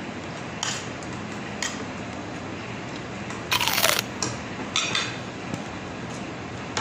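Eating at the table: a few short clinks and scrapes of utensils against a plate, with one longer, louder scrape or crunch a little past halfway, over a steady background noise.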